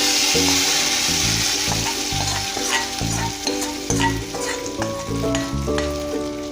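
Hot coconut-oil tempering of mustard seeds and dried red chillies poured into a chicken curry, sizzling sharply at first and then dying down over the next few seconds.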